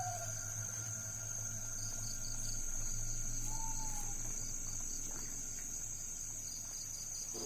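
Crickets trilling steadily, with runs of quicker chirps from another insect and a low steady hum underneath. One short faint call comes near the middle.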